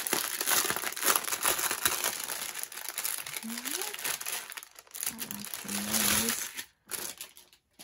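Thin crinkly plastic packets of diamond painting drills rustling and crackling as they are handled and opened, stopping about two thirds of the way through.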